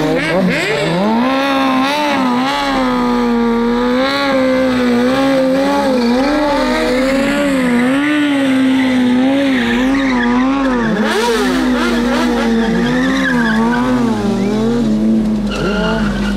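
Sport motorcycle engine held high in the revs during stunt riding, the pitch bobbing up and down continuously as the rider works the throttle.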